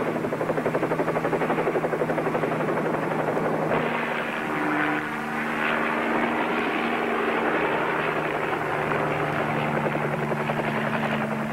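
Bell 47 helicopter running, its rotor chopping rapidly over the steady drone of the engine as it sets down. About four seconds in the sound changes, the blade chop easing while the engine's steady hum carries on.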